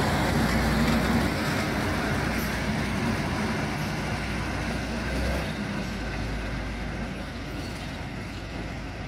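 HŽ class 7122 diesel railcar running as it pulls away, its engine and running gear fading steadily as it moves off.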